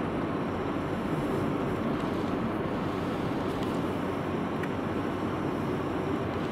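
Steady road and engine noise of a car, heard from inside the cabin while driving.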